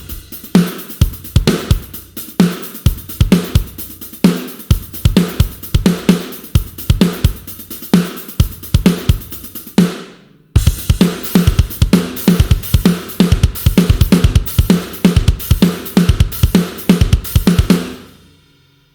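Sampled rock drum kit from GetGood Drums' One Kit Wonder Aggressive Rock library playing a fast, heavy groove: rapid bass drum hits under snare and cymbals. It drops out for about half a second a little past the middle, comes back in, and ends with the cymbals ringing out near the end.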